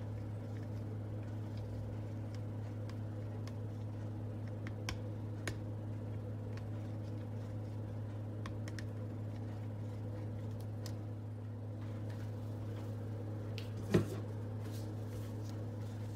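Steady low hum with a few faint clicks scattered through it and one sharper knock about fourteen seconds in.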